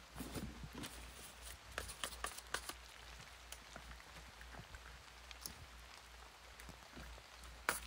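Faint, irregular paper taps and crinkles as paper stickers are peeled from a sheet and pressed onto a paper binder page. A denser run of louder taps comes near the end.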